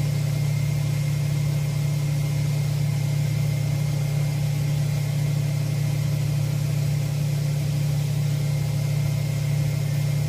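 Cobbler's finishing machine running with a steady motor hum, and a hiss as a shoe is held against its spinning wheel.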